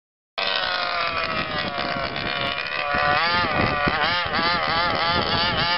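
HPI Baja 5B SS RC buggy's 26cc two-stroke petrol engine running, cutting in about half a second in. From about three seconds in its revs rise and fall quickly several times.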